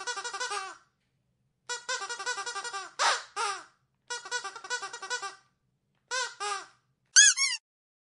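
Squeaky dog toy squeezed over and over: runs of rapid squeaks broken by short silent gaps. There is a louder single squeak about three seconds in, and a couple of higher-pitched squeaks near the end.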